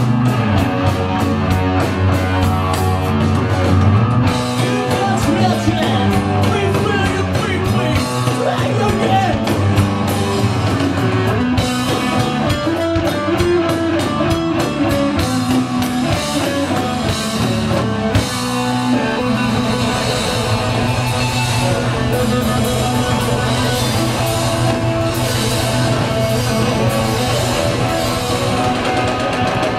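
A rock band playing live loud, with distorted electric guitars and drum kit; the music shifts to a new section about two-thirds of the way through.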